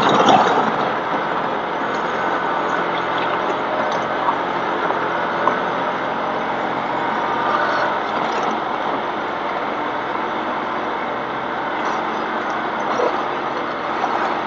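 Tractor engine running steadily while its loader bucket works the burnt debris, with a brief louder clatter at the start and a few light knocks after.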